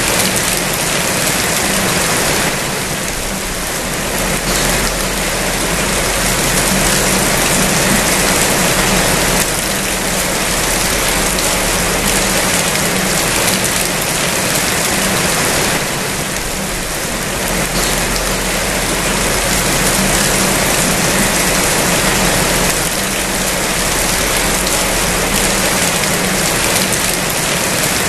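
Rain falling steadily, a dense even hiss that eases slightly and swells back a few times.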